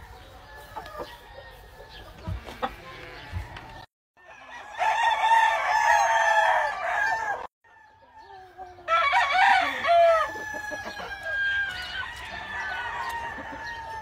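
Gamefowl roosters crowing: a long, loud crow about five seconds in and another about nine seconds in, with clucking and fainter crowing from other roosters around them.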